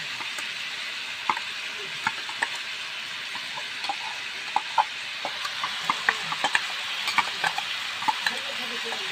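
Potatoes and onions sizzling in oil in a steel kadhai, with a steady hiss. A metal spoon clinks and scrapes against the steel as masala paste goes in, the clinks coming more often about halfway through.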